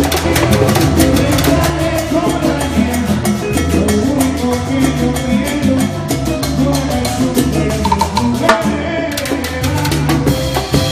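Live salsa band playing an instrumental passage: a moving bass line under busy, steady percussion, with a brief drop in the high percussion about nine seconds in.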